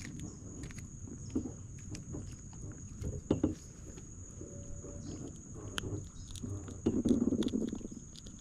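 Close handling noise as a small fish is unhooked by hand: scattered clicks and rustles, with a louder rustling scrape about seven seconds in, over a faint steady high whine.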